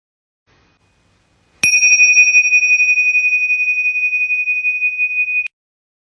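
A small bell struck once about a second and a half in, ringing one high, clear tone with a slight wavering pulse for about four seconds before it cuts off abruptly.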